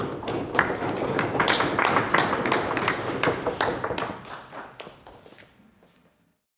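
A small audience applauding, a dense run of hand claps that thins out after about four seconds and is cut off abruptly near the end.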